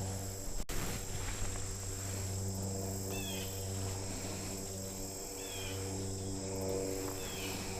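Steady high insect drone over a low steady hum, with a bird's short chirp repeated three times, about two seconds apart.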